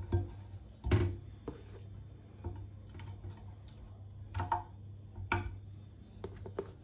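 Onion slices being set down by hand in a glass baking dish: scattered light taps and clicks, the loudest about a second in, over a low steady hum.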